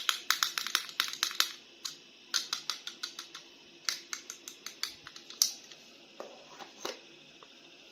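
Plastic toy packaging handled during unboxing: rapid runs of sharp clicks and crackles, dense in the first second and a half, then in sparser clusters.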